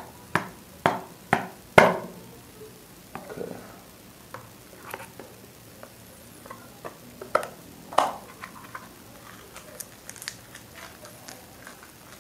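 Spoon stabbing through the inner seal of a plastic mayonnaise jar: four sharp pokes about half a second apart. Then scattered soft clicks and crinkles as the seal is torn away from the rim and the spoon digs into the mayonnaise, with two louder knocks a little past halfway.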